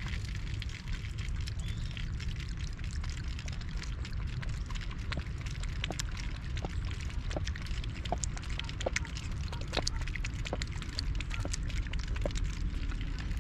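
A thin stream of water running from an outdoor tap and splashing onto a metal drain grate, with a cat lapping at the stream. Many small, irregular clicks and drips sound over the steady splash.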